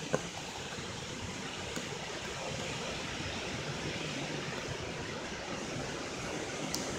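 Steady rushing noise of storm wind, with a brief click near the end.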